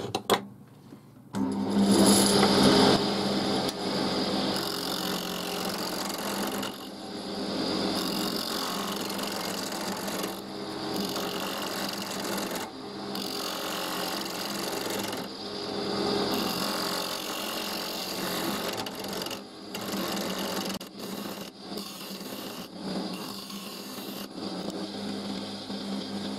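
Wood lathe running while a turning tool cuts a spinning hazel spindle: a continuous shearing hiss of shavings coming off, over a steady motor hum. The cutting starts about a second in and breaks off briefly several times as the tool is lifted and put back to the wood.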